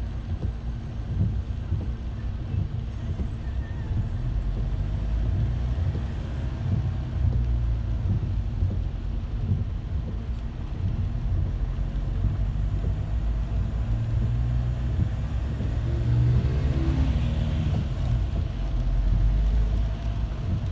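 Steady low rumble of a car in slow traffic, heard from inside the cabin: engine and road noise.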